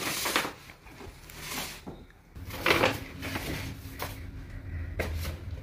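Handling noises: a few short rustles and knocks as objects are moved about.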